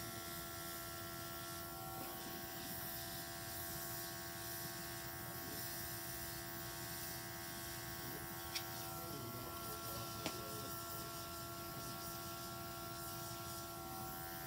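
Portable airbrush's built-in compressor motor running steadily while it sprays ink, a steady electric hum whose pitch shifts slightly about two seconds in and again near the end. Two light clicks come past the middle, about a second and a half apart.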